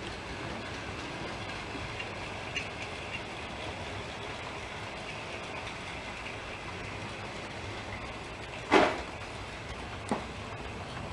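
Model freight train of hopper wagons rolling along the layout's track, a steady running rumble of wheels on rail. A sharp knock about nine seconds in is the loudest moment, and a lighter click follows a second later.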